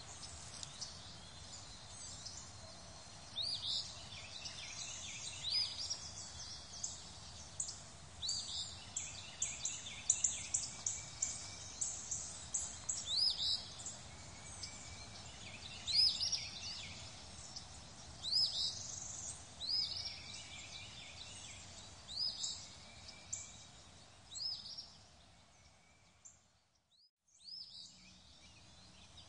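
Birds chirping, with many short high calls scattered throughout, over a steady background hiss of outdoor ambience. Near the end the sound drops out briefly, then the chirping resumes.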